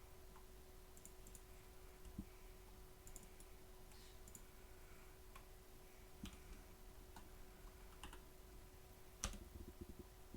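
Faint computer mouse clicks at irregular intervals, the loudest about nine seconds in, followed by a quick run of clicks near the end, over a faint steady hum.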